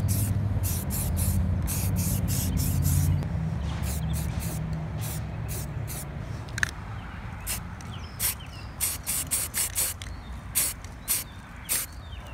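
Short bursts of hissing spray from a Rust-Oleum aerosol can, many quick squirts in a row, spraying primer onto a car's body panel. A low steady rumble is loudest for the first three seconds or so, then fades.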